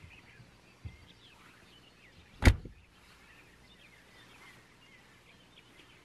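A van's front door slammed shut once, a single sharp bang about two and a half seconds in, with a smaller thump about a second in. Birds chirp faintly in the background.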